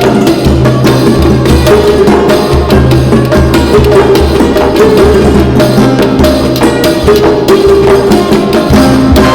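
Background music with a steady percussion beat and sustained melodic tones.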